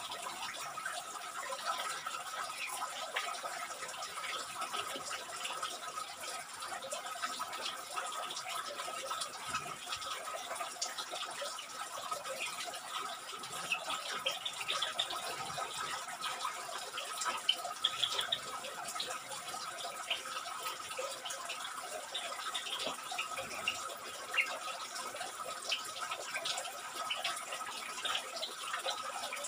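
Steady water-like hiss with a steady high tone running through it, and scattered faint short chirps throughout, more of them about halfway through.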